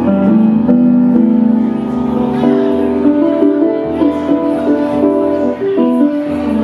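Roland RD-700 stage piano playing held chords, the notes changing every second or so.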